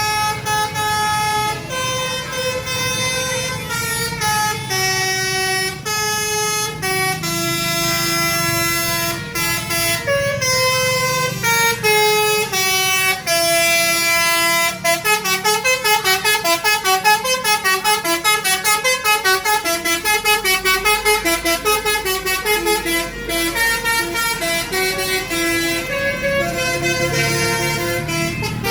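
Indonesian bus 'telolet' multi-tone air horn playing a tune. It starts with held notes stepping up and down, then from about halfway switches to a fast run of short, quickly alternating notes.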